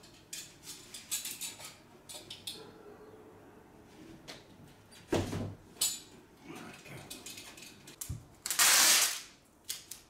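A sliding window being handled: clicks and rattles of its lever handle and frame, a dull thump about five seconds in, and a loud, harsh rasp lasting about half a second near the end.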